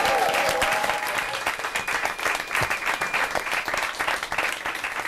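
A crowd applauding with quick, dense clapping as a song ends, the last sung notes dying away just at the start; the applause gradually thins and gets quieter.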